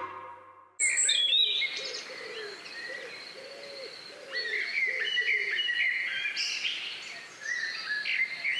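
Wild birds calling, with many overlapping short high chirps and a lower call repeated several times through the first half; the sound starts suddenly about a second in.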